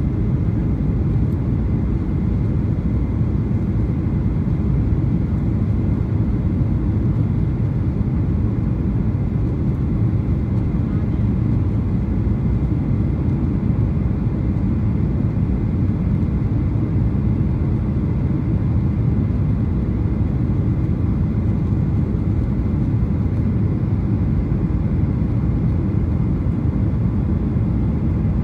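Steady cabin noise of a Boeing 737-800 heard from inside the passenger cabin: a low, even rumble of its CFM56 jet engines and airflow that holds constant without change.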